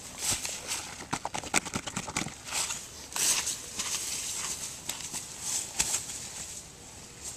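Irregular knocks, clicks and rustling from movement close to the microphone, thickest in the first two seconds and thinning toward the end.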